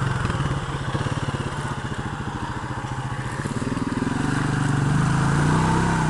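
Single-cylinder ATV engine running at low speed with an even pulsing beat, then picking up revs and getting louder about two-thirds of the way through as the quad drives into a muddy creek crossing.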